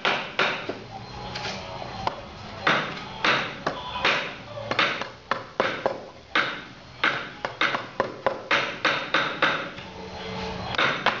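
Carving mallet striking the handle of a woodcarving gouge as it cuts into a wooden panel: a long run of sharp, irregular knocks, often two or three a second, each with a short ring.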